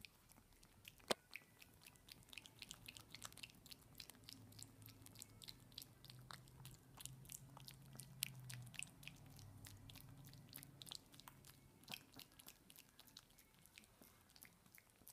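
Small dog chewing a treat with its mouth open: a fast, irregular run of sharp crunching clicks of teeth on the treat, with one sharper click about a second in.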